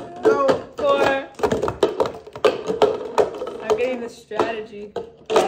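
Clear plastic cups being stacked and unstacked quickly on a wooden table, clacking against each other and tapping down on the tabletop in a rapid, uneven run of clicks. A voice is heard briefly near the start.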